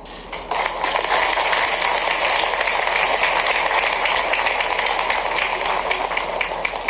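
Audience clapping, starting about half a second in and thinning to scattered separate claps near the end.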